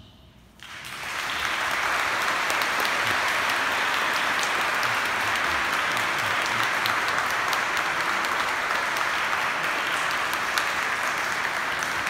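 A church congregation applauding, swelling in about a second in and then holding steady.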